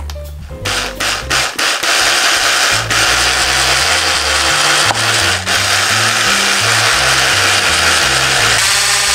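Electric hand mixer with wire beaters whisking cake batter in a glass bowl. It starts and stops a few times about half a second in, then runs steadily.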